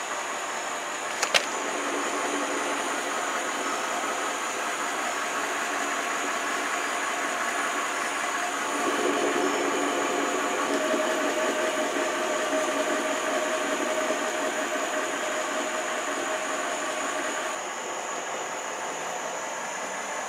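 2004 Mercury Marauder's 4.6-litre DOHC V8 idling, heard at the exhaust tip: a steady exhaust note that gets louder about nine seconds in and drops near the end. A single sharp click about a second in.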